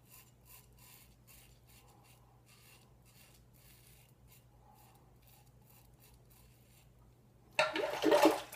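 Faint short rasping scrapes, two or three a second, of a RazoRock Stealth slant safety razor cutting stubble through lather. A brief, much louder burst of noise near the end.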